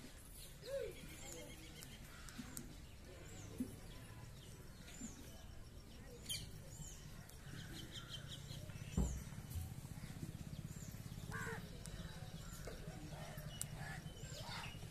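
Small birds chirping with short, high, repeated notes over a low steady hum, and a single thump about nine seconds in, the loudest sound.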